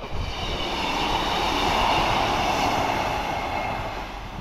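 Diesel multiple unit train passing over a level crossing. It swells to its loudest about two seconds in and fades as it goes by, with a high whine over the rumble.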